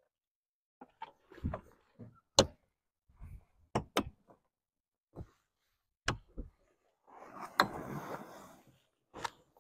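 Sharp knocks, clunks and clicks as someone climbs a metal step ladder onto a pickup's tailgate and handles a Super Pacific X1 camper shell's roof. A rustle of canvas near the end as the camper's pop-up roof is pushed up, with a sharp click in the middle of it.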